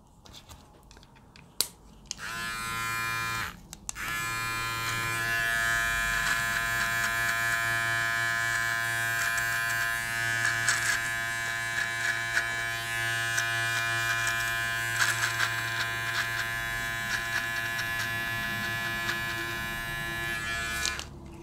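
Powertec TR-758 beard trimmer switched on about two seconds in, stopping briefly, then running with a steady high buzz. Its blades crackle as they cut through beard and mustache hair.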